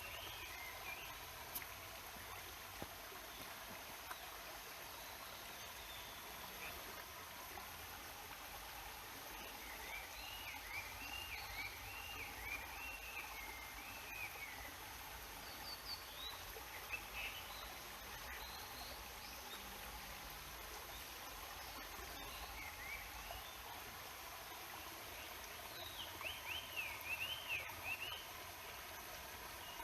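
Steady rush of a mountain stream, with a small bird singing quick, rising-and-falling warbled phrases over it: a long run of notes about a third of the way in, a few short calls in the middle, and another run near the end.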